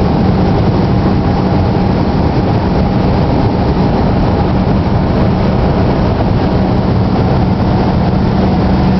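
Steady road and engine noise of a vehicle driving along a highway, with a constant low drone.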